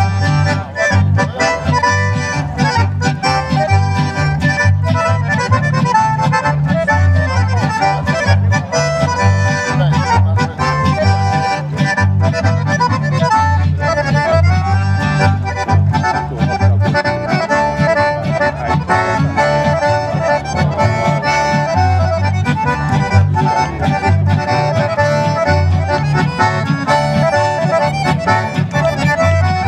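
Live folk band: two accordions playing the tune together over strummed acoustic guitar and an upright bass keeping a steady, regular beat, amplified through microphones and PA speakers.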